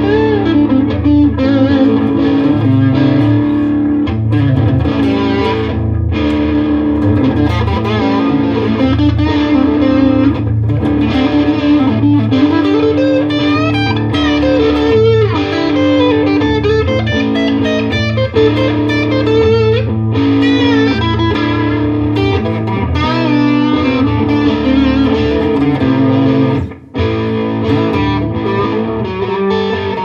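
Vintage V100 Les Paul-style electric guitar played through a Fender Mustang GTX100 amp: blues-rock lead lines with string bends over a looped rhythm backing. The sound cuts out for a split second near the end.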